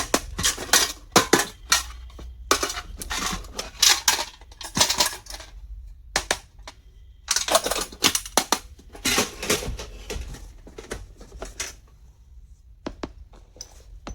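Small plastic and metal stationery items being handled and unpacked: irregular clicks, taps and light clatter mixed with rustling, with a few short pauses.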